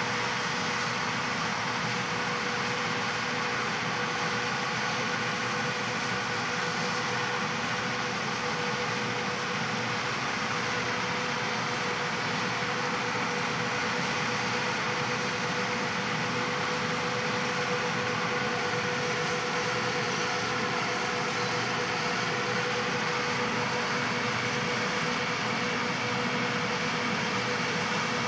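John Deere 8000R-series tractor pulling an Amadas peanut combine while harvesting, the tractor engine and the combine's machinery running steadily, with a constant whine over the running noise.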